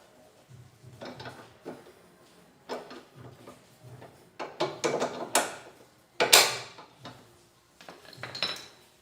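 Metal clinks and scrapes of nuts going onto the bolts of a new ball joint on a steel control arm, in short irregular bursts with one louder clank about six seconds in.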